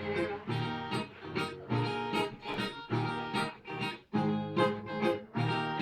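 Brazilian viola (steel-stringed folk guitar) playing an instrumental interlude: a rhythmic run of plucked and strummed notes over a repeating bass, with a brief gap about four seconds in.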